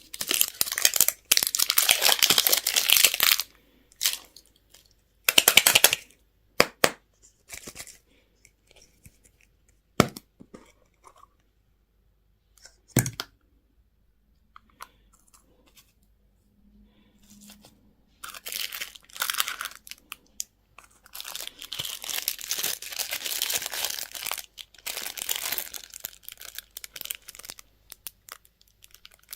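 Plastic candy and toy packaging being torn open and crinkled in close-up, in bursts of rustling and tearing with quiet pauses between. A few sharp single clicks or snaps stand out in the middle.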